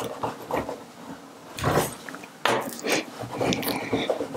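Fluted pastry wheel rolling across a sheet of filled egg-pasta dough on a wooden board, cutting it into strips: soft, irregular scraping with light knocks.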